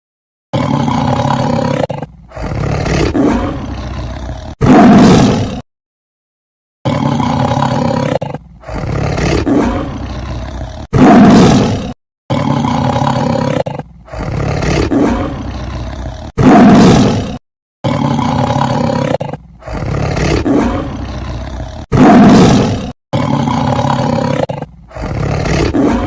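A big cat roaring: a sequence of drawn-out roars ending in one short, loudest roar. The same sequence repeats about four times, with gaps between repeats.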